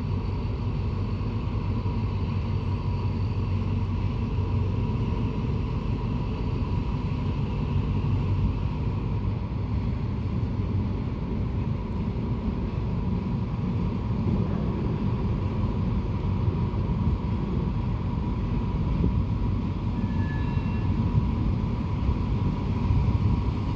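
Diesel-electric locomotive's engine rumbling steadily as it draws a passenger train slowly into the station, with a faint steady whine above the rumble.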